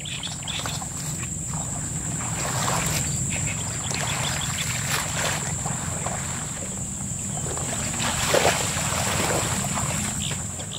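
Splashing and rustling as floating water plants are pulled up by hand and piled in shallow marsh water, over a low wind rumble on the microphone and a steady high whine.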